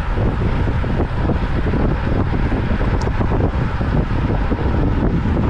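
Steady wind buffeting a microphone carried along at cycling speed, a low rumble with no break.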